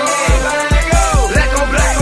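Hip hop music: a beat with deep, downward-sliding bass notes and crisp hi-hat ticks over a melodic line.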